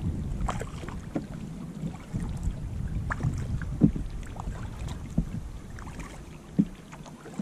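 Kayak paddling: water splashing and lapping around an Oru folding kayak's plastic hull, with a few sharp knocks, the loudest about four seconds in, over a low wind rumble on the microphone.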